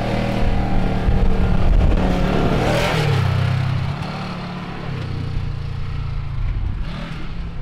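Polaris RZR side-by-side's engine revving hard under load as the buggy climbs loose dirt, its tyres churning up dust. It is loudest in the first three seconds and eases a little after about four seconds.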